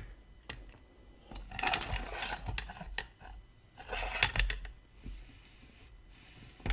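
Hard plastic and metal parts of a Dremel Workstation being handled and set down on a tabletop: a few single clicks, then two bursts of clicking and clattering, about one and a half and four seconds in.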